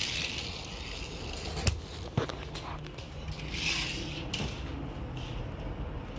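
Handling noise from a phone being moved over a wooden floor: rustling swells near the start and again around four seconds in, with two light clicks about two seconds in over a low steady hum.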